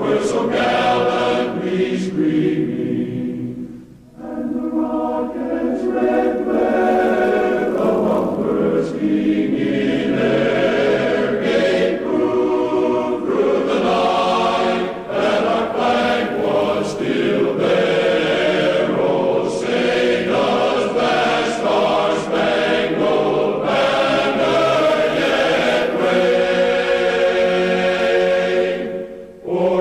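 A choir singing: several voices holding long sustained notes together. The singing breaks off briefly about four seconds in and again near the end.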